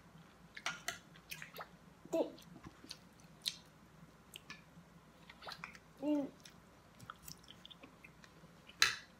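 Close-up eating sounds: chewing and mouth noises with scattered light clicks of a fork on a plate and a plastic container. There are two brief vocal sounds, and a sharp click near the end is the loudest sound.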